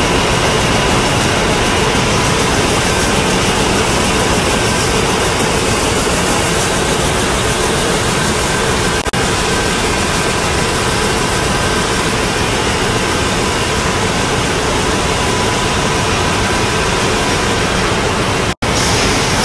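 Steady machinery noise on a plastic bottle production floor: a loud, even hiss and hum with a few faint steady tones running through it. The sound breaks off for an instant near the end.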